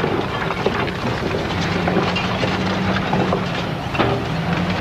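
Broken bricks and rubble clattering and tumbling onto a heap in a run of irregular knocks, over an engine running steadily underneath.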